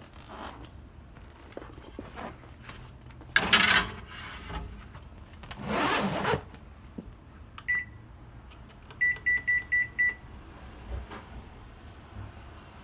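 Two short rustling handling noises, then the electronic beeps of a kitchen oven's control panel: a single beep, and a second later five quick identical beeps in a row.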